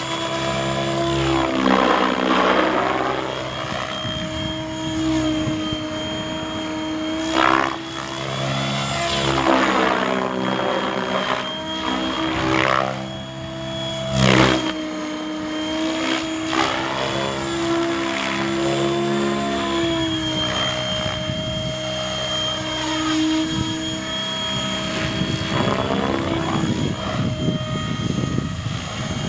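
Radio-controlled electric helicopter flying, its motor and rotor giving a steady whine that drifts a little in pitch. There is a whooshing sweep each time it passes by, and a few brief louder swooshes as it comes close.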